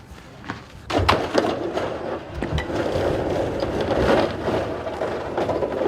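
Torn-off porch awning being pulled and dragged across a roof by a rope: about a second in, a sudden loud crunch, then continuous scraping and grinding with several knocks.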